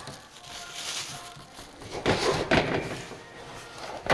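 Unpacking a new sheet-steel benchtop sandblast cabinet: plastic wrap rustling as it is pulled off, and a thunk of the cabinet and its hinged lid being handled about two seconds in.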